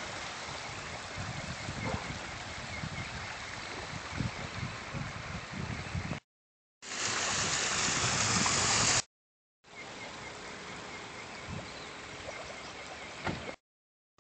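Silty water from soil liquefaction flowing and gurgling across a flooded street: a steady rush of water with irregular low gurgles. The sound drops out briefly three times, and a louder, hissier stretch comes in the middle.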